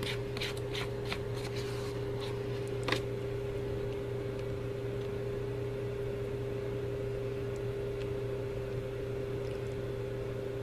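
Steady low hum with a faint steady tone above it, the kitchen's background drone, under a few light taps and clicks in the first three seconds from handling the plastic candy-kit tray.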